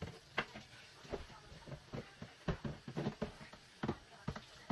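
Irregular light knocks and clatter of kitchen items being handled during cleaning, about a dozen in a few seconds.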